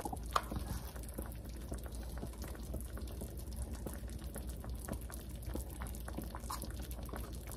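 Chicken, artichoke and lemon stew simmering in a stainless steel pot, with small bubbles popping steadily over a low steady hum.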